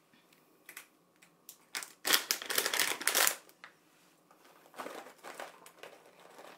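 A plastic pouch crinkling as it is handled and dried shrimp are shaken out of it. A few light clicks come first, then a loud burst of crinkling about two seconds in that lasts over a second, and softer rustling near the end.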